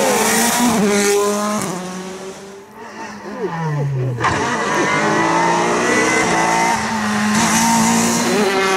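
Rally car engines at full throttle on a tarmac stage. A Volkswagen Polo R WRC revs hard through gear changes, then fades and drops in pitch; about four seconds in the sound cuts to a Renault Clio rally car coming on at high revs and shifting up.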